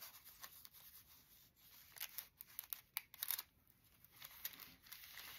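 Faint paper rustling and crinkling as a handmade junk journal's pages and tuck-in tag are handled and turned, with a cluster of short, sharper rustles in the middle.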